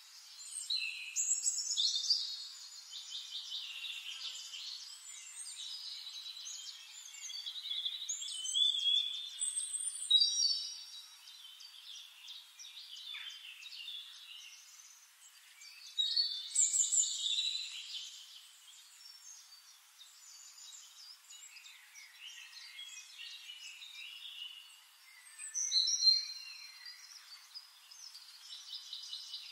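Birds singing and calling, several high-pitched songs and chirps overlapping, with louder bursts of song about a second in, around 9 to 10 seconds, around 16 to 18 seconds and near 26 seconds.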